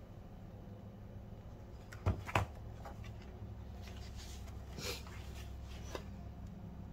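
Paper build-guide magazine being handled: two knocks as it is set down on the table about two seconds in, then a page turned with a rustle near the middle, over a steady low hum.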